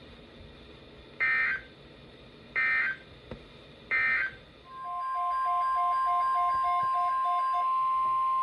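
Three short bursts of SAME digital data tones from NOAA Weather Radio, about a second and a half apart; their brevity fits the end-of-message code closing the previous alert. About five seconds in, the steady 1050 Hz weather radio warning tone starts, with a faint pulsing beep about four times a second under it for a few seconds.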